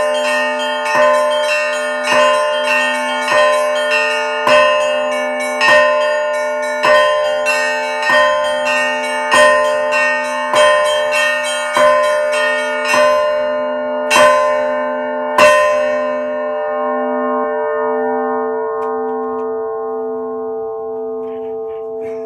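Orthodox church bells struck in a steady rhythm, a heavier stroke a little over once a second with lighter strokes between. The striking stops about fifteen seconds in, and the bells ring on, slowly fading.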